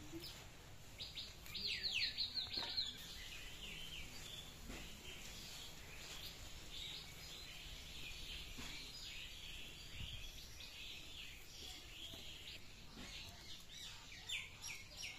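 Birds chirping: a loud burst of quick, downward-sliding calls about a second in, then a steady run of high chirps.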